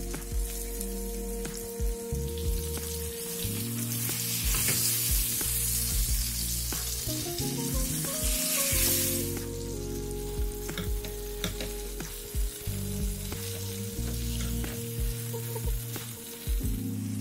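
Flour-coated chicken breasts sizzling in hot oil in a frying pan, the sizzle swelling louder for several seconds in the middle, with scattered taps of a plastic spatula as the pieces are turned. Soft background music with held notes plays underneath.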